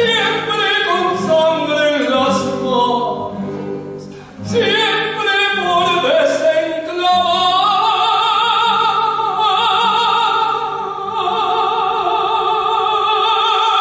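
Choir with a small orchestra of strings and guitar performing, the voices singing with vibrato. The music drops away briefly about four seconds in, then settles into a long held chord in the second half.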